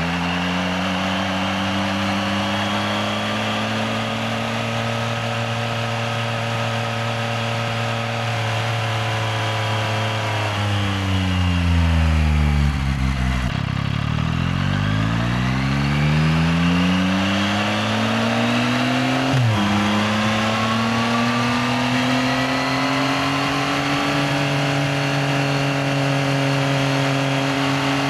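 A 2025 Yamaha XSR900's 890 cc inline-three engine under way: it holds a steady pitch, winds down as the bike slows a little before halfway, then accelerates again. About two-thirds of the way in, the pitch drops suddenly at an upshift and then climbs steadily.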